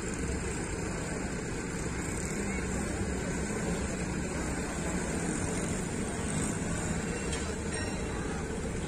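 An engine running steadily, a constant low rumble under outdoor noise.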